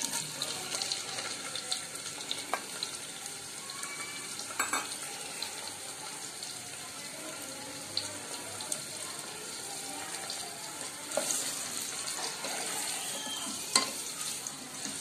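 Sliced onions sizzling in hot oil in a pressure cooker: a steady crackling hiss with scattered small pops. About eleven seconds in they are stirred with a wooden spoon and the sizzle grows louder.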